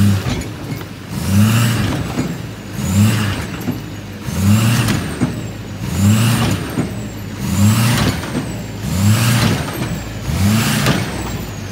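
Pickup truck engine revving in short repeated bursts, about every one and a half seconds, as the truck is jerked forward against a tow strap to pull out a tree stump. A faint high whine rises and falls with each rev.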